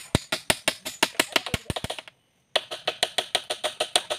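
Rapid, evenly spaced sharp knocks, about seven a second: a hammer striking a wooden pole joint to fix the crossbar of a shelter frame. The knocking breaks off for a moment about two seconds in, then starts again.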